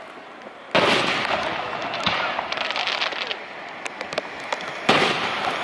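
Aerial firework shells bursting: a sudden loud boom under a second in, a run of fast sharp pops a couple of seconds later, and a second loud boom near the end.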